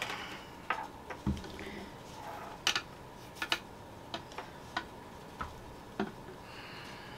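Irregular light clicks and knocks of a Spider-Man LED desk lamp being handled and set down on a desk, about ten separate taps with short gaps between them.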